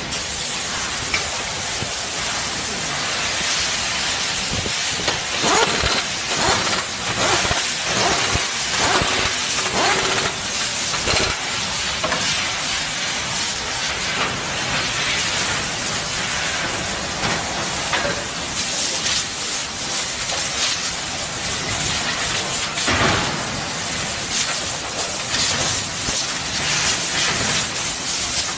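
Steady hissing of yoga ball molding machinery, with a run of metal clanks from the molds being handled between about 5 and 11 seconds in and another knock near 23 seconds.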